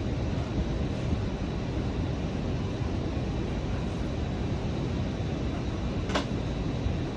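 Steady low rumble of travel noise inside a moving vehicle, even and unchanging, with one short click about six seconds in.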